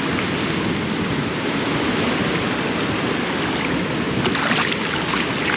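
Choppy water washing and lapping around the pier pilings, with wind on the microphone. About four seconds in come a few quick splashes as a black drum held in the water kicks.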